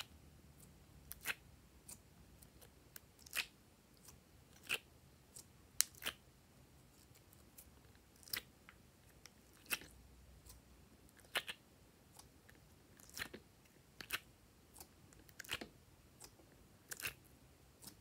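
Short, sharp sticky pops and clicks, about one every second or so, as soft slime cubes are pushed out of a silicone honeycomb ice-cube mold and pressed into rows.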